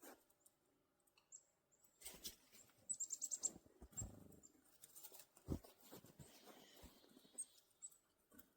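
Faint small winter songbirds chirping: scattered high calls and a quick run of about five high notes about three seconds in. A few soft low thumps come in between.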